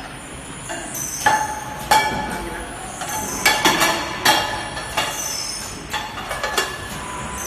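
Four-station turntable screen printing machine cycling: a series of sharp metallic clanks that ring on briefly, about six in all, over a repeated high squealing hiss.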